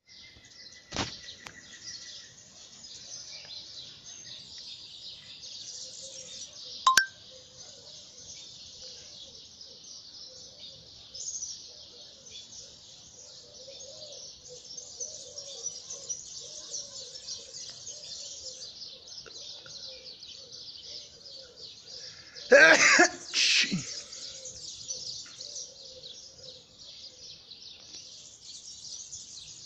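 A dense chorus of many birds chirping and chattering together in the trees. About three quarters of the way in come two loud, harsh pitched sounds, and a sharp click is heard about seven seconds in.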